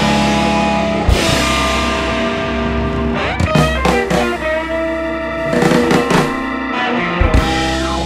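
Rock background music with guitar and a drum kit, playing steadily with a few sharp drum hits.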